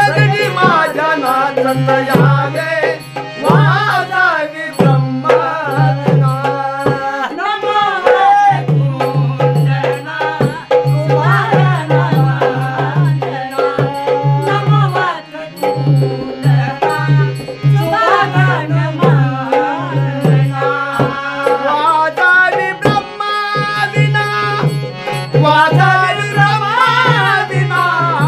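Male lead singer with a small chorus singing a traditional Marathi tamasha gan, the opening invocation to Ganesha, to a harmonium holding a steady drone and regular hand-drum strokes.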